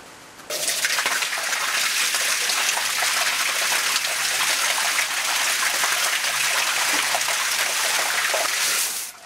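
Water gushing from an opened stop valve on the supply pipe and splashing into water pooled on the floor of a concrete chamber, flushing debris and air out of the pipe. It starts suddenly about half a second in and stops near the end.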